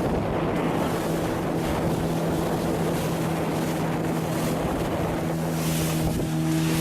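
Fishing boat's engine running steadily at an even pitch, under wind noise on the microphone and the rush of water.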